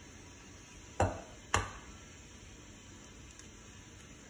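An egg knocked twice against the rim of a white ceramic mixing bowl to crack its shell, two sharp taps about half a second apart.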